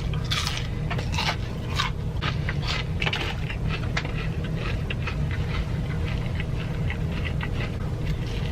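Close-up chewing of a fried onion ring: a run of irregular crunches that are loudest in the first few seconds and then turn softer and quicker. A steady low hum runs underneath.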